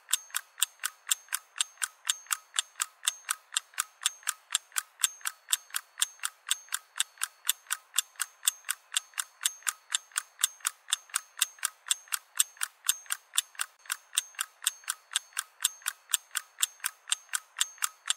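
Ticking clock sound effect: even, metronome-regular ticks about three a second, thin and without any low end.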